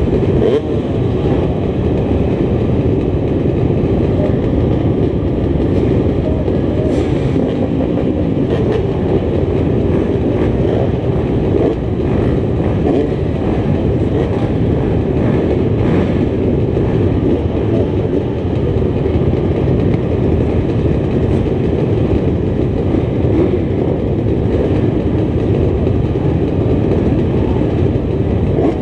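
A field of dirt bike engines, two-strokes and four-strokes, idling together on a start line: a loud, steady, dense din of many overlapping engine notes.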